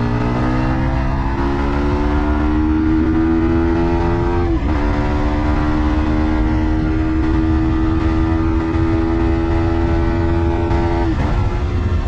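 Yamaha MT-15 V2's 155 cc single-cylinder engine pulling hard through the gears: the exhaust note climbs steadily in pitch, drops at a gear change about four and a half seconds in, then climbs again until another shift near the end.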